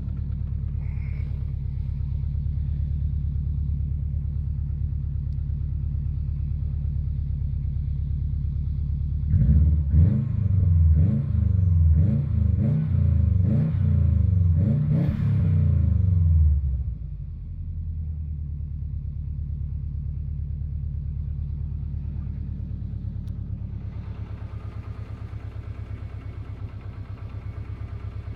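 Subaru Impreza WRX's EJ20G turbocharged flat-four engine idling, then blipped repeatedly for several seconds, each rev rising and falling, before settling back to idle. The engine has a knock that the owner suspects comes from a connecting rod, while others put it down to forged pistons.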